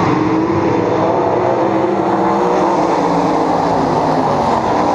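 A pack of World of Outlaws sprint cars racing on a dirt oval, their 410 cubic-inch methanol V8 engines running hard. The engines overlap into a loud, steady drone whose pitch drifts up and down as the cars go by.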